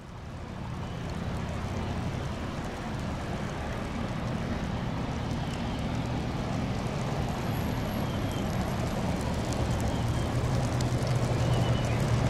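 Boeing 787-9 Dreamliner on final approach with gear down, its twin jet engines making a steady low rumble that grows gradually louder as it nears.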